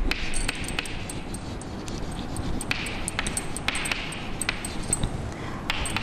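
Chalk writing on a blackboard: a run of sharp taps and short scratchy strokes as the chalk moves across the board.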